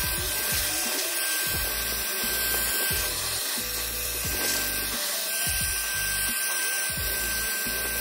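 Handheld electric blower running steadily, blasting air through an opened fan heater and spinning its fan to blow the dust out. Background music with a beat plays underneath.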